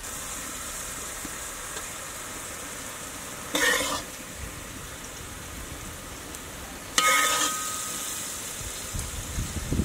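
Food sizzling in a hot wok: a steady frying hiss, with two short, louder bursts of sizzling about three and a half and seven seconds in.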